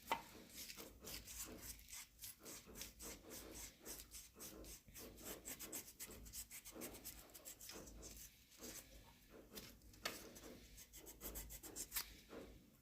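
Fine-grit sandpaper rubbing back and forth on an engine valve stem in quick, faint, scratchy strokes. It is smoothing the lip that the valve keeper has worn on the stem so the valve will slide out of the cylinder head.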